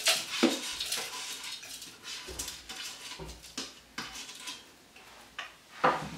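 Crispy fried onions being tipped into a Thermomix's stainless-steel mixing bowl: a run of light, irregular clicks and taps of dish against bowl, the loudest near the start and again shortly before the end.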